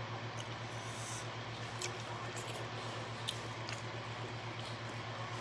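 Soft chewing and faint mouth clicks of a person eating close to the microphone, a few scattered clicks, over a steady low hum.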